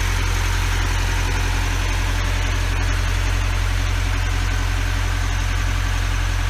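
Sailboat's inboard engine running steadily under way, a constant low hum with a mechanical rattle over it.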